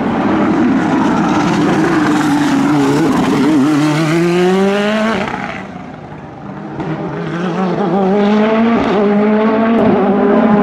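Racing car engines at full throttle. One climbs steadily in pitch and breaks off about halfway. After a short quieter moment, a second loud engine comes in, revving hard.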